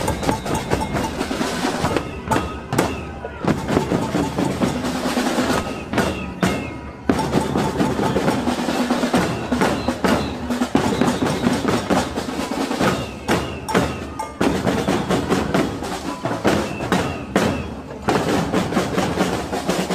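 Marching street drummers beating hand-held frame drums and bass drums in a busy rhythm, many strokes a second.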